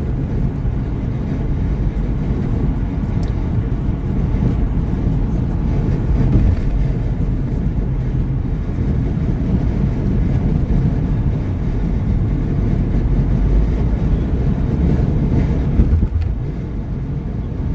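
Steady road and engine rumble inside a car cruising on the highway.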